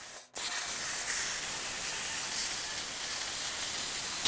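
CNC plasma cutting torch hissing steadily as it cuts thin sheet steel. The hiss starts after a brief gap near the beginning and jumps louder right at the end.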